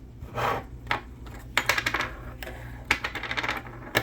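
Small metal parts of a manual 4x4 locking hub clicking and clattering as they are handled and set down, a string of short sharp clicks with a brief rustle about half a second in.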